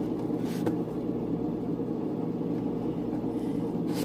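Steady low mechanical rumble with a hum, unchanging throughout, with a couple of faint light clicks about half a second in and near the end.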